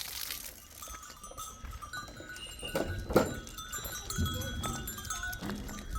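A herd of goats clinking their neck bells as they move, with a sharp knock about three seconds in.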